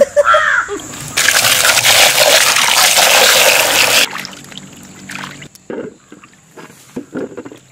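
Water splashing and pouring in a basin as peeled cassava (tapioca) roots are washed by hand, loud and steady for about three seconds, then stopping abruptly. A few soft knocks follow as the roots are handled.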